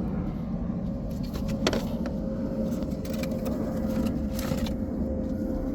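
Car engine idling steadily with a faint steady whine, with a few light clicks of the headlight bulb and its plug being handled, about two seconds in and again near the end.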